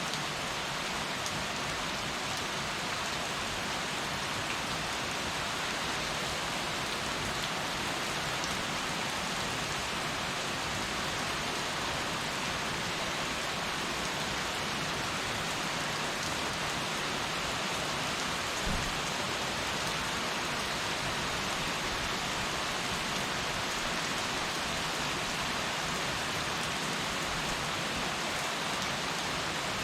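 Heavy rain falling steadily, an even hiss of drops on surfaces. About two-thirds of the way through there is a single dull thump.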